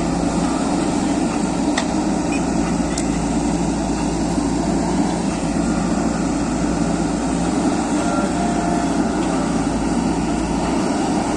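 JCB 3DX backhoe loader's diesel engine running steadily, with a couple of faint clicks.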